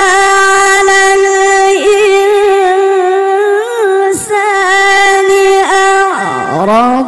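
Solo Qur'an recitation in the melodic tilawah style: one unaccompanied voice holding a long, high note with a slight waver on a drawn-out vowel. Near the end it swoops down and back up, settling on a lower note as the next phrase begins.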